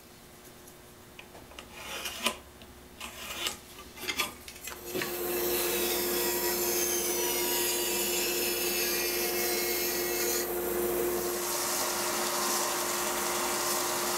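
A few light knocks of wood being handled. Then, from about five seconds in, a band saw runs steadily with a constant hum as it cuts the wooden clamp frame. About eleven seconds in it gives way to a belt sander sanding the wood, with a hissier sound.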